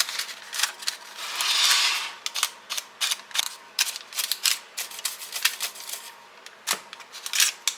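Spatula scraping and clicking against the pan while spreading melted chocolate: a run of irregular sharp clicks, with a longer scrape about one and a half seconds in.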